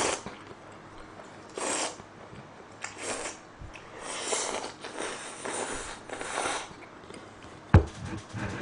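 A person slurping noodles from a bowl of jjamppong: a few short slurps, then a longer run of slurping from about four seconds in, and one sharp click near the end.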